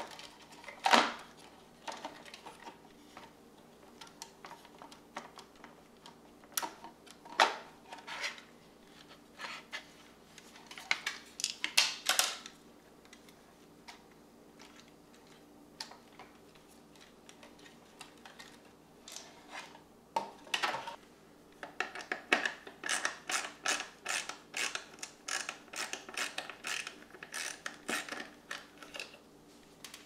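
Plastic housing parts and wire connectors of an espresso machine being handled and pulled apart: scattered clicks, knocks and rattles, with a quicker run of small clicks in the last several seconds.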